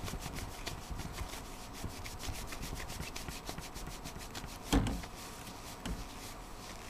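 Paper towel scrubbing back and forth over the metal base of a CPU heatsink to clean its contact surface, a fast steady run of rubbing strokes. One louder bump comes about two-thirds of the way through.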